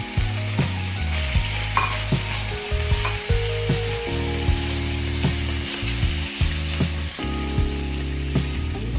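Food frying and sizzling in a pan, with background music playing a steady beat and held bass notes.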